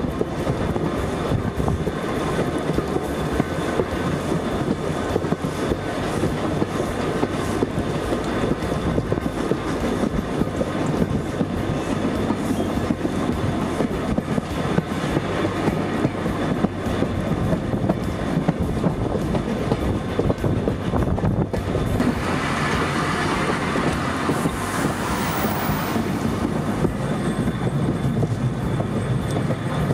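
Heritage steam train running along the line, heard from an open carriage window: a steady rumble and rattle of carriage wheels on the track. The sound turns brighter and hissier for a few seconds about two-thirds of the way through.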